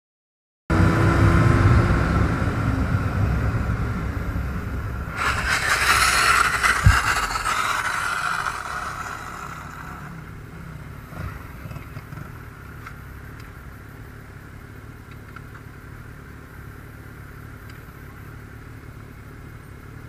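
Motorcycle on-board camera audio: loud rumbling engine and wind noise, then a loud rushing hiss for a few seconds with a sharp knock about seven seconds in. After that it fades to a quieter steady hum with occasional small clicks.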